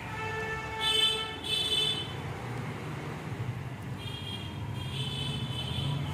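Vehicle horns honking: a held note at the start, two sharper blasts about a second in, and another run of high horn tones past the middle, over a low steady rumble of traffic.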